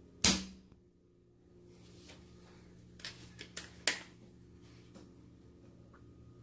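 A single sharp shot from an FX Royale 400 PCP air rifle, with the power adjuster on setting 1 and the regulator freshly re-sealed with new O-rings. About three seconds later comes a quick run of four or five small clicks as the rifle is handled.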